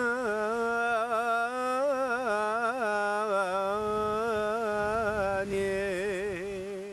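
A man singing unaccompanied, drawing out long wordless notes with wavering, ornamented pitch. It fades out at the end.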